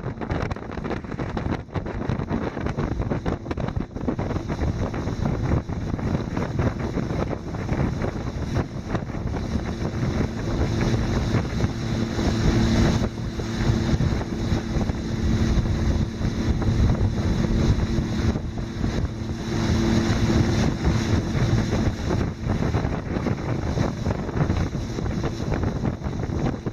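Wind buffeting the microphone, with a steady low hum joining in about ten seconds in and stopping some twelve seconds later.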